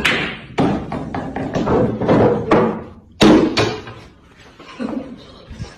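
Snooker balls knocking and thudding on the table as a kitten bats them about: a series of sharp, irregular knocks. The loudest come at the start and a little after three seconds in.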